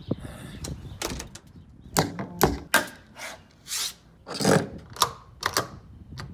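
Irregular clicks, knocks and rattles at a house door with a deadbolt and knob, about a dozen sharp strokes with a couple of longer rattles around the middle, as the door is worked at before it opens.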